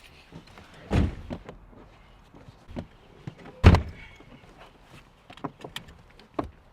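Car doors shutting: two heavy thunks about three seconds apart, the second the louder, followed by lighter clicks and knocks.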